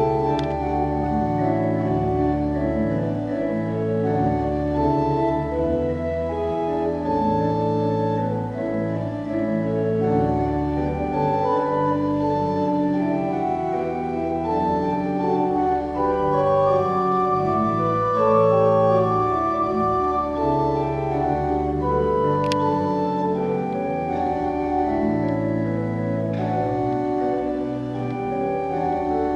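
Church organ playing a hymn tune in full, sustained chords, the harmony and bass line changing every second or so.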